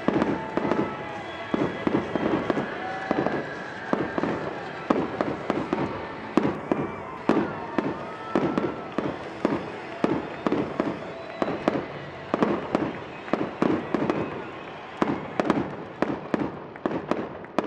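Fireworks finale: a dense barrage of aerial shells bursting, a rapid string of bangs two or three a second that drops away right at the end.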